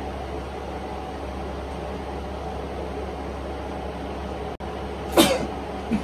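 A man's loud fake sneeze about five seconds in, one sharp burst that falls in pitch, over a steady low background hum.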